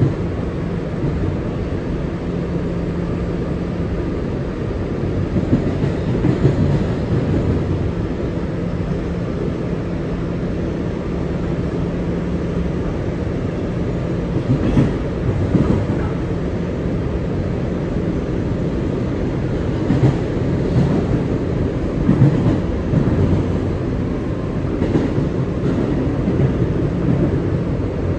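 An R211A subway car running at speed, heard from inside the car: a continuous rolling rumble with a steady hum through the first half. Several sharp wheel clicks over rail joints come in the second half.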